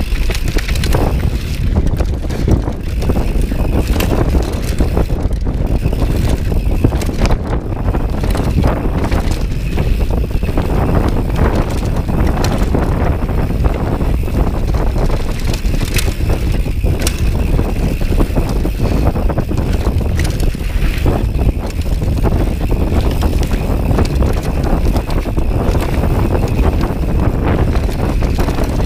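Wind buffeting the microphone of a camera riding on a mountain bike at speed down a dirt trail, over a steady rumble of tyres on the ground. Frequent sharp rattles and knocks come from the bike as it hits bumps.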